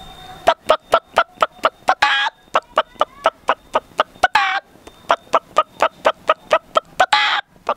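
A boy imitating with his voice the cackle of a hen that has just laid an egg: a quick run of short clucks, about five a second, broken three times by a longer drawn-out squawk.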